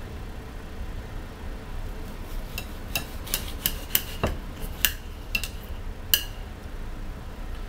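Kitchen knife clinking against a glass plate while lemon quarters are sliced into eighths: about ten sharp clinks with a short glassy ring, starting a couple of seconds in and stopping after about six seconds, over a low steady hum.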